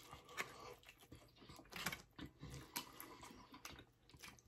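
Faint chewing and mouth sounds of people eating, a run of scattered short smacks and clicks.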